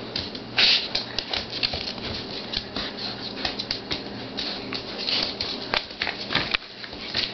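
Pit bull puppies' claws clicking and scrabbling on a tile floor as they wrestle, a quick, irregular patter of small clicks with a louder scuffle about half a second in.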